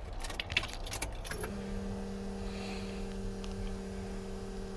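Car keys jangling and clicking in the ignition, then a steady electrical hum that starts about a second and a half in as the key is turned to on, with the engine not yet running.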